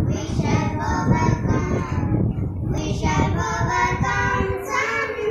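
Young girls' voices singing a song together, unaccompanied.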